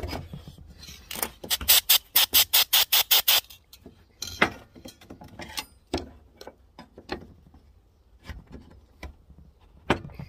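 Quick back-and-forth scraping strokes on metal, about a dozen in two seconds, then one short scrape and scattered light clicks and knocks of tools and parts.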